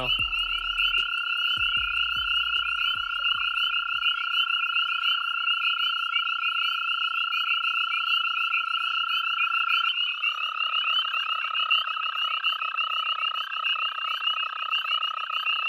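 Eastern gray tree frogs trilling in a continuous high-pitched chorus, with a slight change in the sound about two-thirds of the way through.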